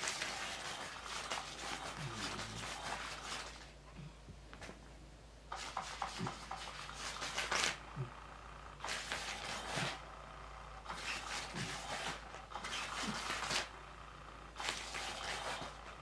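A cat's paws scratching and batting at a crinkly play mat: rustling crackle that comes in about five bursts, with short quiet gaps between them.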